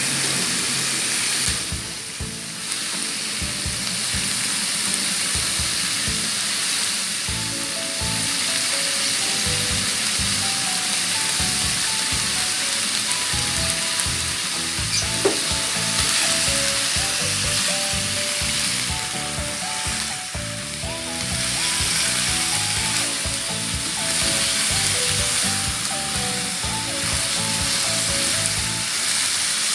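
Pork pieces sizzling steadily as they fry in a nonstick pan, with a spatula stirring them near the end. Background music plays along.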